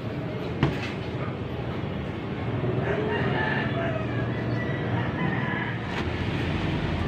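A rooster crowing: one long call about three seconds in, over a steady low rumble. A single sharp knock comes just under a second in.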